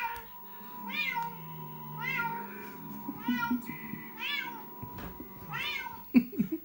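Recorded cat meows played through a mobile phone's speaker: a short rising-and-falling meow about once a second, six in all. About six seconds in, a sharp loud sound cuts across them.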